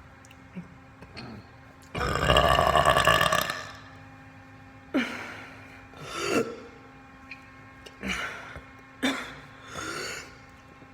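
A person burping: one long, loud burp about two seconds in, lasting about a second and a half, then several shorter burps.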